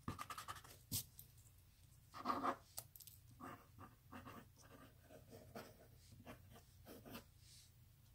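Pencil scratching on paper in many short, quick strokes, faint, as looping curls of hair are sketched in.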